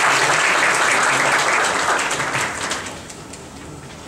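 Audience applauding, a dense patter of many hands that dies away about three seconds in.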